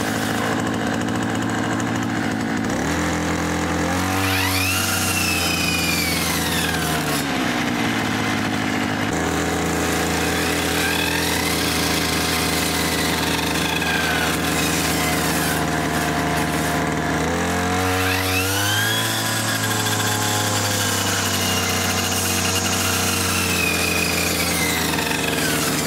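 String trimmer engine driving a circular saw blade, running steadily and twice revving up, climbing in pitch, then easing back down.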